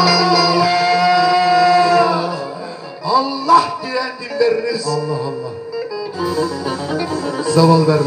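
Male singer holding one long note for about two seconds over band accompaniment with plucked strings, then the band plays on with a short sung phrase.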